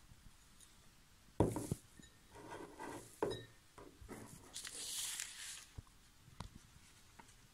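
A drinking glass of water set down on a table with a knock, followed by paper rustling and crinkling as a sheet is picked up and folded, with a few small taps and clicks.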